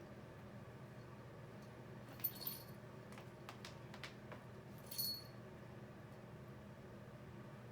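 A cat playing with a catnip kicker toy: two brief metallic jingles about two and five seconds in, with a few light clicks between them, over a steady low hum.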